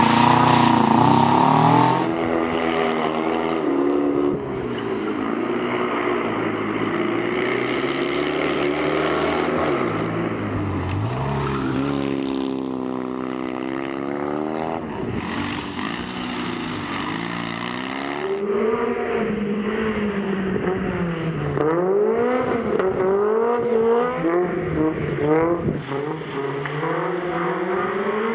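Rally cars taking turns on a wet, slushy course: first a Subaru Impreza, then a Fiat 126p, then a Honda Civic. Each engine revs up and down repeatedly as the car slides through the turns, and the sound changes abruptly at the cuts from one car to the next.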